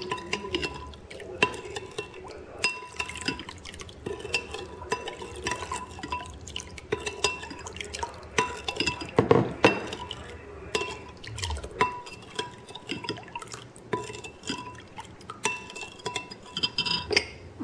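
Metal spoon stirring a thin sauce in a glass bowl, clinking against the glass again and again, each tap leaving a short ring.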